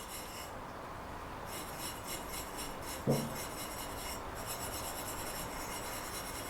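Wire wool scrubbing a freshly soldered copper pipe joint in quick rasping strokes, with a short break about half a second in and another just past four seconds. It is the clean-up stage after soldering, taking the excess flux off the pipe.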